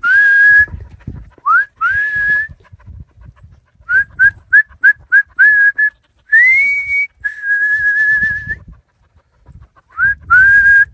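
A person whistling to call dogs: short rising whistles that level off into a held note, a quick run of about seven short whistles about four seconds in, then a longer held whistle with a slight waver, and two more rising whistles near the end.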